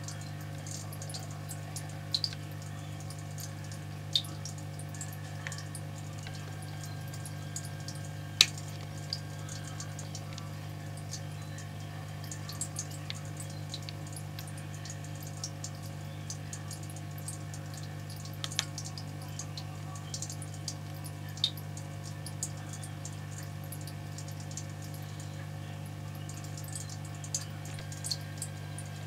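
Steady low hum of an aquarium pump with water trickling, dotted with scattered small clicks and drips, the loudest one about eight seconds in.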